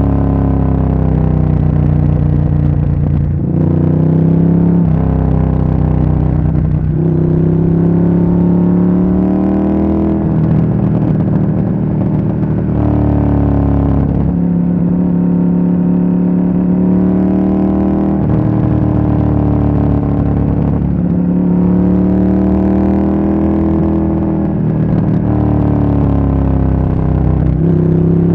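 Ducati Monster S4R's V-twin engine and exhaust on the move, heard from the bike itself. Its note rises and falls in pitch, breaking and settling at a new pitch every few seconds as the throttle and revs change.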